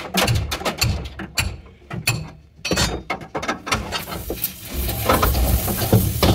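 Quick, irregular metallic clicks and knocks of steel pipes working against a truck cab's sheet-metal roof pillar as it is levered and straightened, with a brief lull a little under halfway.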